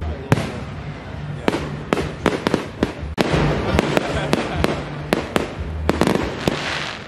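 Aerial fireworks bursting: a quick run of sharp bangs, roughly two or three a second, with a noisy rush between them.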